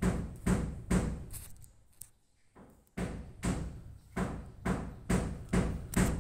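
A run of knocking thumps, about two a second, each dying away quickly. They pause for about a second around two seconds in, then go on.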